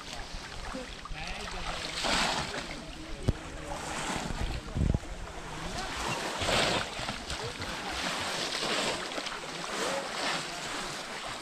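Shallow muddy water splashing and sloshing as people wade through it and lift and plunge bamboo polo fishing traps, in irregular louder surges every second or two, with a few low thumps near the middle.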